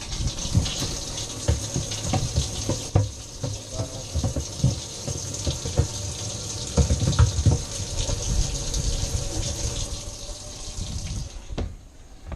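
Boat livewell being filled with lake water by its pump: a steady gushing rush of water that stops about a second before the end, with scattered low knocks and bumps.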